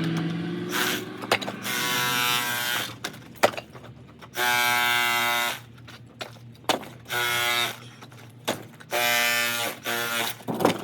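Electric chisel (chipping hammer) running in four short bursts of about a second each with a steady pitch, chipping old stucco off a rock wall. Sharp knocks come in the gaps between bursts.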